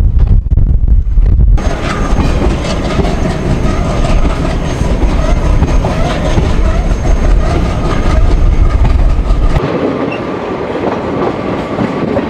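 Diesel-hauled passenger train running, heard from beside a coach: the wheels on the rails and the rush of the moving coaches. The sound changes abruptly about a second and a half in, becoming brighter, and again near ten seconds, when the low rumble drops away.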